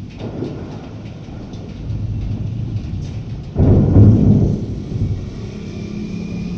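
Thunder rumbling low and steadily, then a sudden louder peal about three and a half seconds in that dies away over the next second or so.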